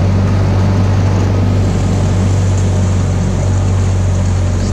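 Tohatsu 15 hp outboard motor running steadily with the boat under way, over a steady rushing noise.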